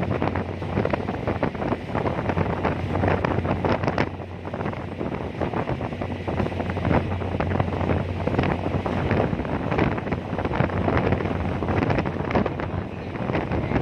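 Strong wind buffeting the microphone in uneven gusts, over a steady low hum from the ferry's engine.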